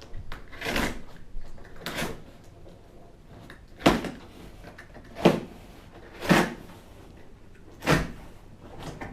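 A cardboard box is being handled and shifted on a hard surface. Two longer scraping sounds are followed by four sharper knocks, roughly one to two seconds apart.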